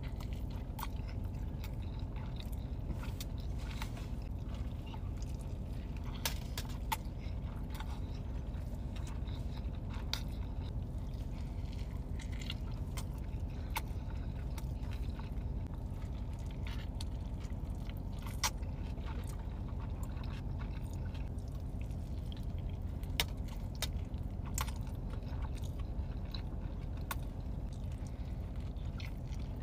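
A person biting into and chewing a burrito close to the microphone, with many sharp wet mouth clicks scattered over a steady low hum.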